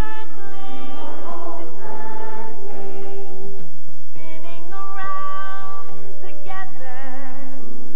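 A song: a woman singing a melody over instrumental backing, with backing vocals, ending on a long held note with vibrato.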